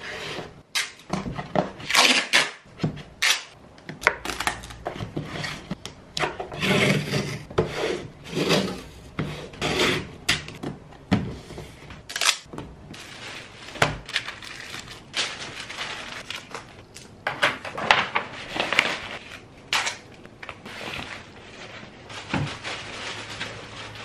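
Cardboard box being folded and handled, with tape pulled off a roll and pressed down to seal it: an irregular run of rustles, scrapes and light knocks.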